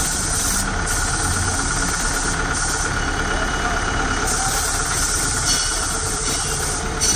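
Diesel tractor engine idling steadily, a low hum with a steady high whine over it.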